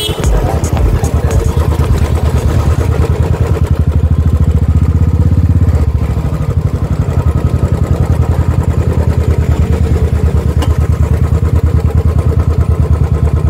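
Motorcycle engine running at speed, heard close up as a rapid, even train of exhaust pulses. It swells and rises in pitch about four seconds in as the bike speeds up, then eases back about six seconds in.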